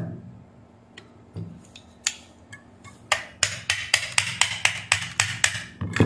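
Hand tools clicking and tapping against the hard plastic of a phone charger case as it is worked open: a few scattered clicks, then a quick run of sharp taps at about four or five a second from about halfway, ending in a louder knock.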